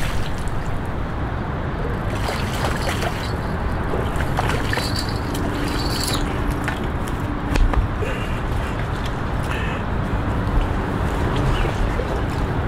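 Hooked striped bass splashing at the river's surface as it is reeled in and hauled out onto the bank, over a steady rushing background noise, with a short louder thump a little past halfway.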